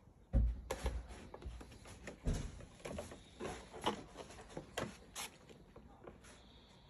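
Irregular light knocks and clicks, with two heavier thumps about half a second and about two seconds in.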